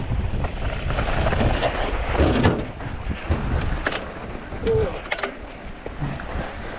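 Wind buffeting the microphone with tyre noise from a mountain bike on a rough trail, easing after about two and a half seconds, with a few sharp clicks and rattles from the bike about four to five seconds in.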